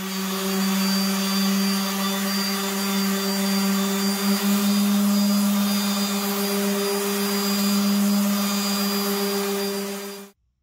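Random orbital sander running steadily, a hum with the hiss of the abrasive pad sanding a wood and epoxy resin surface; it cuts off abruptly just before the end.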